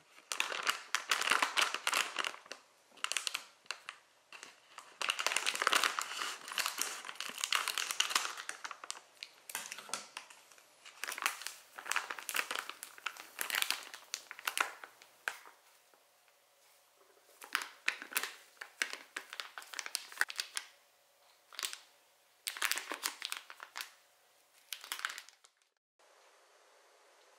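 Plastic flour bag crinkling in irregular bursts as it is handled and opened. Near the end it stops abruptly, leaving only faint steady room noise.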